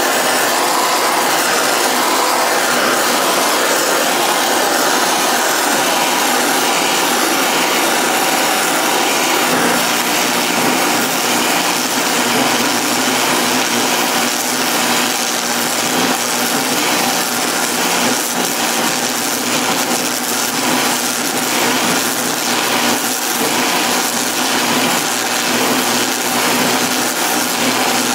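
Stick welding with nickel rod on cast iron: a steady crackling hiss from the arc, mixed with the hiss of a heating torch's flame held on the part to keep it from cooling and cracking. A deeper hum joins about ten seconds in.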